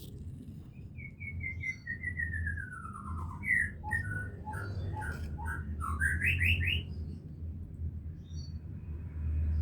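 A bird singing: a run of about a dozen quick whistled notes falling in pitch, then scattered notes and a short rising run about six seconds in, over a steady low rumble.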